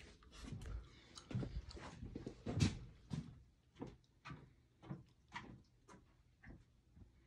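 A few knocks and rustling, the loudest knock a little before halfway, then footsteps at an even walking pace, about two steps a second.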